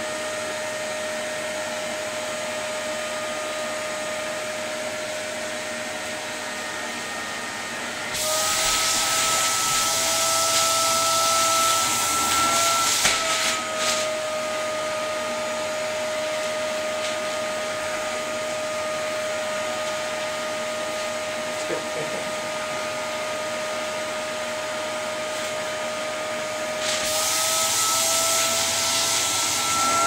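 Household vacuum cleaner running with a steady motor whine. About eight seconds in, a louder rush of air sets in for some five seconds while the motor note rises slightly, and it comes again near the end.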